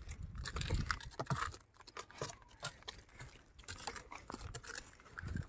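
Water buffaloes walking on dry dirt and straw: irregular soft crunches and taps of hooves, with a low rumble in the first second.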